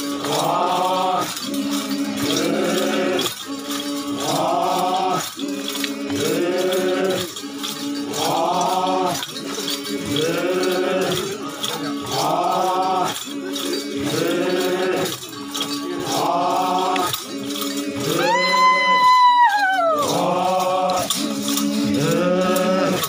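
Yimchunger Naga troupe of male dancers chanting in unison: a rising group call repeated about every two seconds over a held drone, with metal ornaments jingling in time with their steps. About three-quarters of the way in, one loud high whoop rises, holds and falls.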